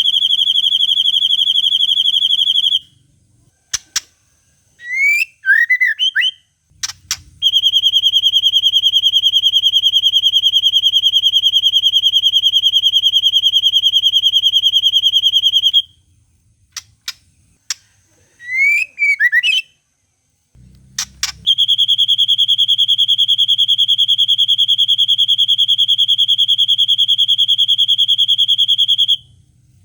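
White-rumped shama (murai batu) song: three long, even, rapid trills held at one high pitch, each lasting several seconds, with short quick rising chirps and sharp clicks between them. The long trills are the long 'cililin' call in the bird's mimicked repertoire.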